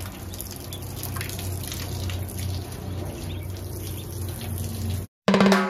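Day-old ducklings sipping and dabbling at a plastic waterer and pecking at the feeder: many short taps, clicks and small splashes over a steady low hum. Near the end it cuts out briefly and music with drums begins.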